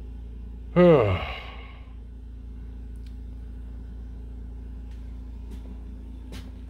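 A man's short sigh, about a second in, falling steeply in pitch over about half a second, over a steady low hum and a few faint ticks.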